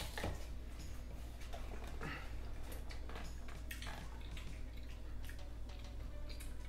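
Scattered small clicks and taps as a plastic tumbler's lid and straw are handled, over a low steady hum.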